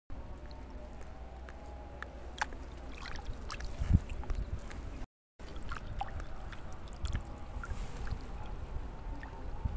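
Wind rumbling on the microphone over water lapping, with small clicks from fishing tackle being handled and one louder knock about four seconds in.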